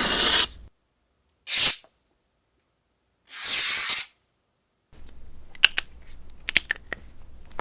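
A knife blade drawn at an angle along metal in three quick scraping strokes for a Foley blade sound. Each stroke is a bright, hissing scrape; the second is the shortest and sharpest, and there is dead silence between them. Faint clicks and handling noise follow in the last few seconds.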